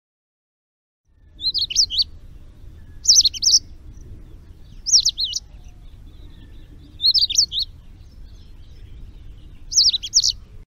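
A small bird calling: five short phrases of quick, high, looping chirps, repeated about every two seconds over a faint low background hum.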